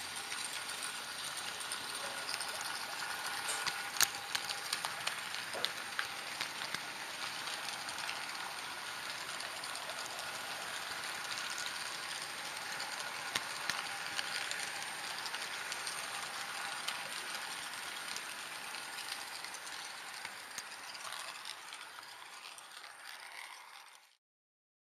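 HO-scale model train running along the track, a steady mechanical whirr of its motor and gears with scattered clicks of the wheels over the rails. The sound fades and cuts off near the end.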